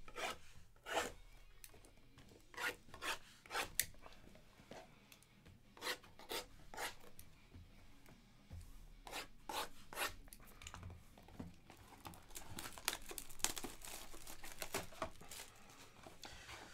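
Plastic shrink-wrap on cardboard trading-card boxes being slit with a box cutter and torn, and the boxes shuffled about. The sound is a run of irregular short scrapes, rubs and taps, with denser scratching a few seconds before the end.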